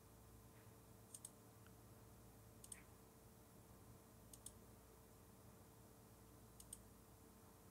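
Faint computer mouse clicks, four times a second or two apart, each a quick double click of press and release, over near-silent room tone.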